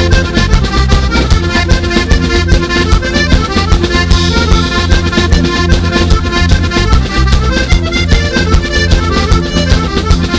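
Background music: an upbeat accordion-led traditional dance tune with a steady beat.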